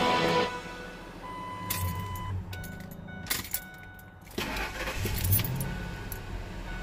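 Keys jangling and the ignition switch clicking as the key is turned in a 2001 Ford Expedition's freshly repaired steering column. About four seconds in, the V8 engine cranks, catches, rises briefly and settles to a low steady idle, the test start of the repaired ignition.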